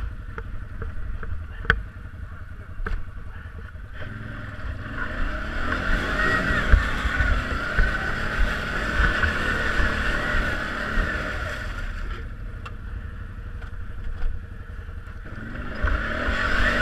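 BRP off-road vehicle's engine revving hard for several seconds, then easing off, and revving again near the end, as the vehicle strains to climb out while stuck on the trail.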